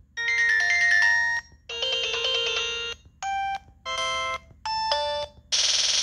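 LG VX6100 flip phone's speaker playing short previews of its preloaded ringtones one after another as the list is scrolled, about six in all. Each is a few synthesized chime-like notes cut off abruptly by the next. The last one, near the end, is a noisier drum pattern.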